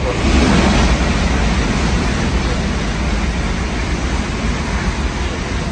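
Tokaido Shinkansen bullet train passing through the station at speed without stopping: a loud, even rush of air and track noise with a deep rumble underneath.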